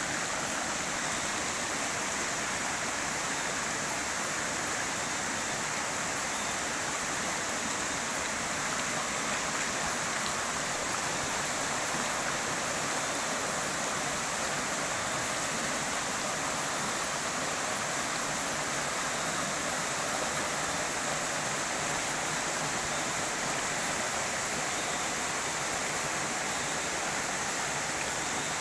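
Steady rush of a shallow forest stream flowing over rocks, an even noise with no breaks.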